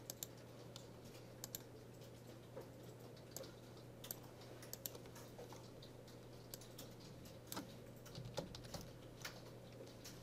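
Scattered, light keystrokes and clicks on a computer keyboard and mouse, over a faint steady low hum.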